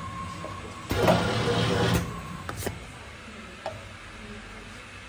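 Paper cup printing machine running a print cycle: a steady high whine, then about a second in a second-long burst of mechanical whirring, after which it runs quieter with a couple of clicks.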